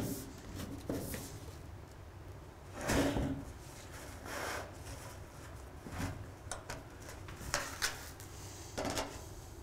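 A sheet-metal roofing panel being handled and shifted over the valley flashing: scraping and rustling of metal against metal, with a few sharp clicks near the end.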